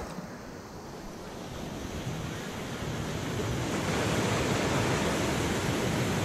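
Ocean surf washing in and breaking on the beach, a steady rushing noise that grows louder over the first few seconds.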